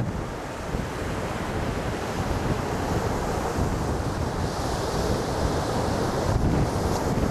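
Ocean surf breaking and washing up a sandy beach, with wind buffeting the microphone. One wash of foam hisses louder a little past the middle.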